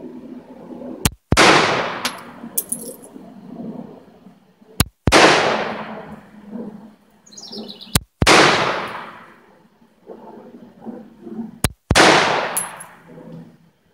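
Four single shots from a CZ 52 pistol in 7.62×25 mm Tokarev, fired slowly about three and a half seconds apart, each ending in a fading echo. Light metallic clinks follow the first and last shots.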